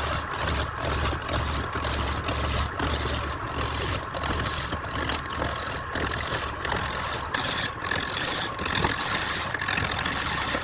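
Wood lathe running with a turning tool cutting the spinning workpiece: a steady hiss over a low motor hum, pulsing in even beats about three times a second.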